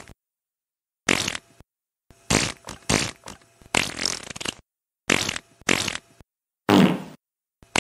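A string of comic fart sound effects, about eight short blasts one after another with silent gaps between them.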